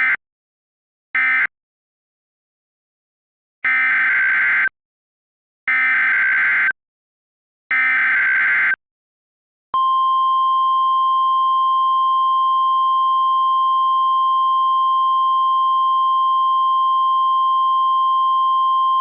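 Emergency Alert System signalling tones. Two short screeching data bursts, the end-of-message code, are followed after a pause by three one-second bursts of the SAME header data, about two seconds apart. About ten seconds in, a steady single-pitch 1050 Hz weather-radio attention tone starts and holds.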